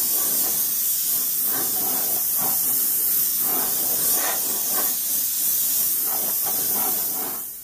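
Airbrush spraying paint: a steady, high hiss of air that cuts off right at the end.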